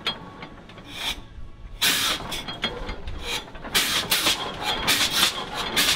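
Hart-Parr 60 tractor's big two-cylinder engine running, with sharp, uneven exhaust pops several times a second that set in about two seconds in after a quieter start.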